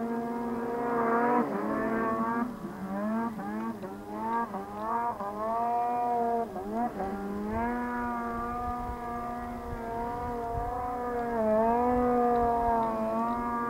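Arctic Cat M1000 snowmobile's two-stroke twin engine running under load up a steep snow slope, its pitch wavering up and down as the throttle is worked, with brief dips several times.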